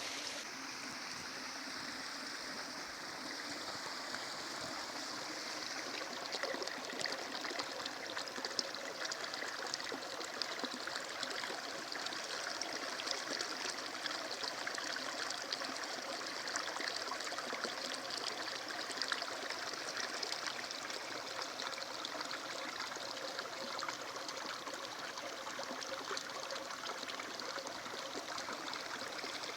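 Water running steadily in a small stream, a constant rushing trickle.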